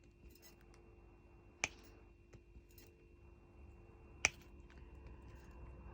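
Diamond-painting drill pen tapping resin drills onto the sticky canvas: two sharp clicks about two and a half seconds apart, with a few fainter ticks between, over a faint steady hum.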